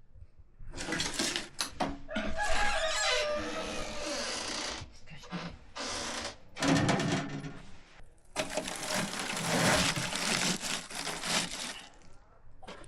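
A rooster crowing once about two seconds in, a long call falling in pitch, amid stretches of scraping, rustling noise.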